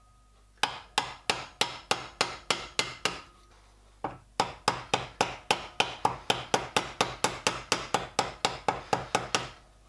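Small hammer tapping rapidly on brass wire laid in a groove along a brass sheet, backed by a bench vice, swaging the wire flat into the sheet. Light, sharp metal taps about four to five a second, in two runs with a short pause about three seconds in.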